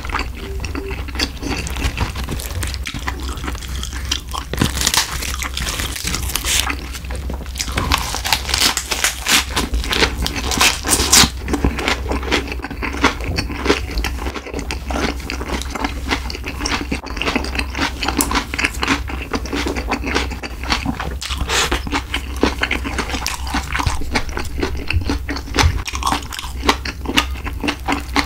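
Close-miked chewing of a lettuce wrap of spicy stir-fried pork with bean sprouts: wet, crunchy bites and chewing, heaviest in two stretches in the first half.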